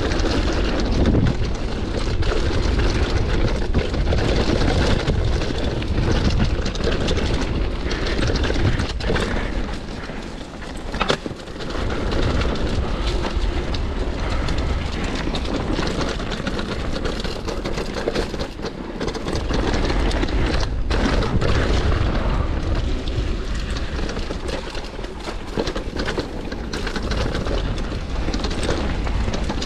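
Downhill mountain bike running down a loose dirt trail: tyres crunching over the ground and wind buffeting the microphone with a deep rumble, broken by scattered knocks from bumps. The noise drops briefly about ten seconds in.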